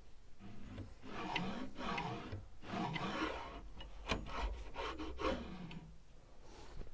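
Metal drawer runner being slid in and out on the side of a chipboard cabinet: a series of scraping, rubbing strokes about once a second, with a sharp click a little after four seconds.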